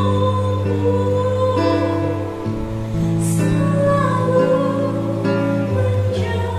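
A woman singing an Indonesian worship song with acoustic guitar accompaniment.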